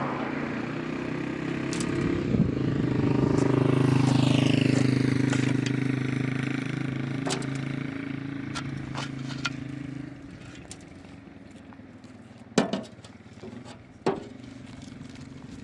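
An engine running with a steady hum that swells and then fades over several seconds, dropping away about ten seconds in. Two sharp knocks follow near the end.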